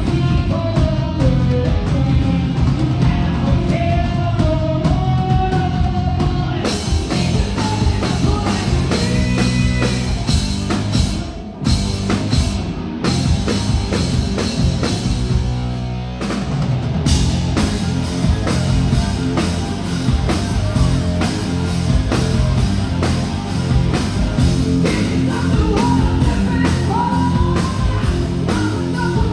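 Live rock band with a woman singing lead over bass and drums. About seven seconds in, the full band comes in with cymbals crashing. It drops out briefly a few seconds later and then drives on, with the singing returning near the end.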